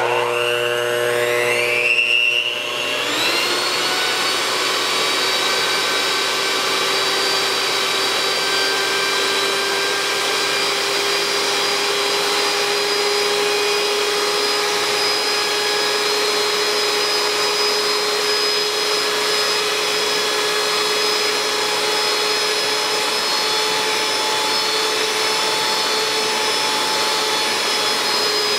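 Oster electric hand mixer running with its beaters in a cup, whipping instant coffee, sugar and hot water into foam. The motor rises in pitch over the first three seconds as it speeds up, then holds a steady whine.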